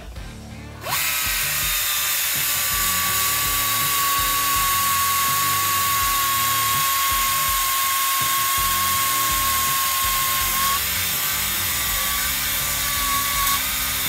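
Handheld cut-off grinder starting about a second in and cutting steadily through metal, with a high motor whine that sags a little and wavers under load near the end.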